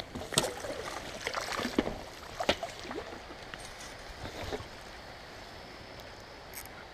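Irregular splashes and knocks in creek water, thickest in the first three seconds, over a faint steady stream noise: a hooked muskie being fought near submerged sticks.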